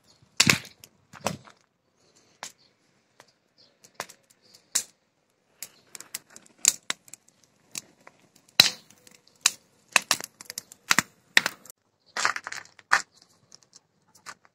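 A small fire in a heap of dry acacia branches crackling, with sparse, irregular sharp snaps.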